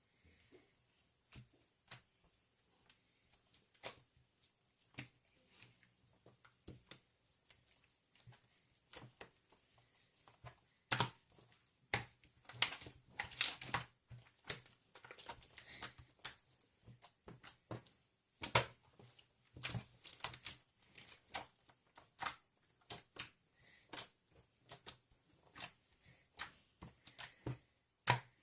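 A series of irregular clicks and taps, sparse at first and then more frequent and louder from about a third of the way in.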